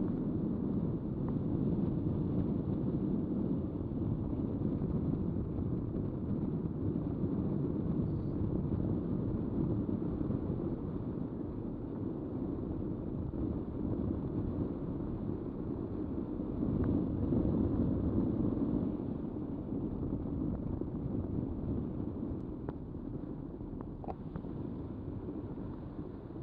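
Steady low rumble of wind buffeting the microphone aboard a boat at sea, a little louder about two-thirds of the way through.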